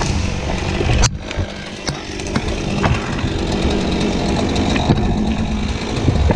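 Chainsaw running steadily, with a sharp knock about a second in.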